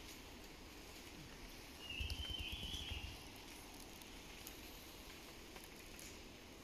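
Quiet rainforest background. About two seconds in, a low rumble on the microphone lasts about a second, and a short high call sounds alongside it.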